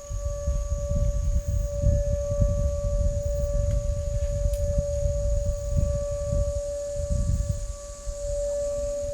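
A strange, unidentified siren-like tone that holds one pitch throughout, with no rise and fall, over an uneven low rumble.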